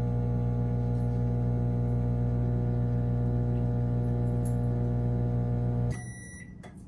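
Microwave oven running with a steady electrical hum, cutting off suddenly about six seconds in as its timer runs out, followed by a high beep.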